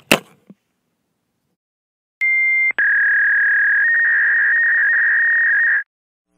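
Electronic beep tone: after about two seconds of silence, a short beep, then a long steady single-pitch beep of about three seconds that cuts off suddenly.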